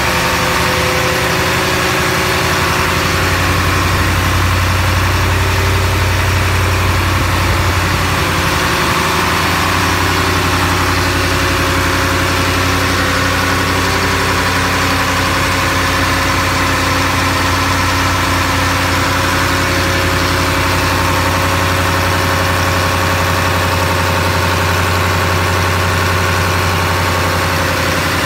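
Diesel truck engine idling steadily, with an even low drone.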